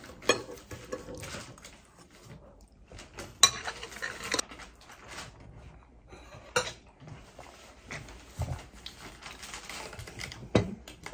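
Eating at a table: chopsticks and tableware clinking and knocking now and then, with short noisy eating and drinking sounds between, the longest about three and a half seconds in.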